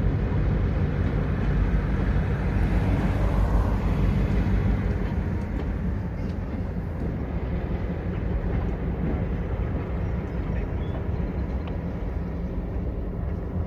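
Georgia Northeastern Railroad freight train rolling past, a steady rumble of its diesel locomotives and tank cars that eases off slightly about five seconds in.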